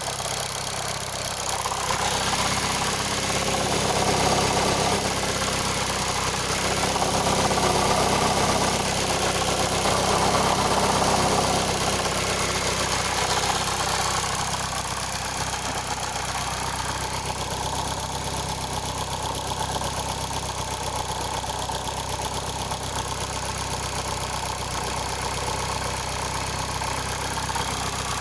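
Mitsubishi 4G11T inline-four engine idling with a knock whose origin is unclear. The sound is somewhat louder for the first half, then settles steadier.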